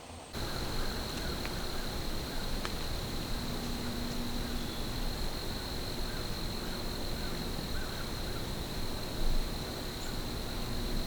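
Crickets trilling steadily at one high pitch over a constant hiss, starting abruptly about a third of a second in.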